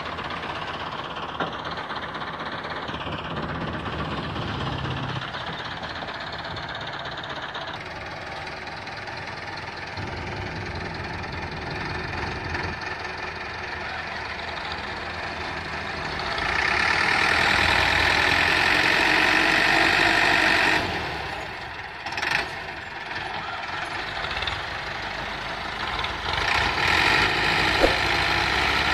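Diesel engines of an IMT 577 tractor and an MF 240 tractor running under heavy load as the IMT tries to tow the MF 240 and its loaded trolley through soft ground. Past the middle the engine note rises and gets louder for about four seconds, then drops back.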